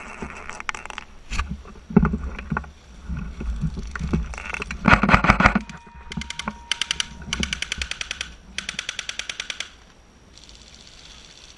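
Airsoft guns firing: scattered single shots and knocks, then three rapid full-auto bursts of about a dozen shots a second in the second half.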